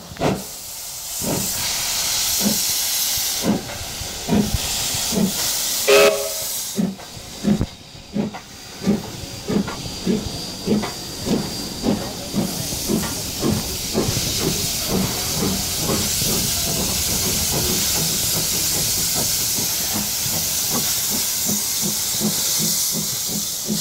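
Double-headed steam locomotives, an AC16 and a PB15, pulling away: exhaust chuffs start about one a second and quicken to about two a second over a loud steady hiss of steam from near the cylinders. After about fifteen seconds the chuffs fade, leaving the steady hiss as the carriages roll past.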